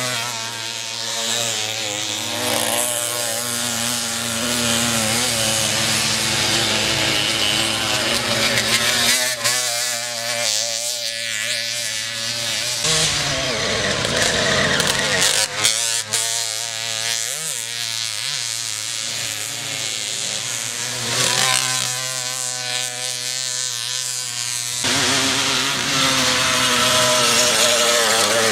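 Small two-stroke moped engines buzzing and revving on a dirt track, their pitch wavering up and down with the throttle.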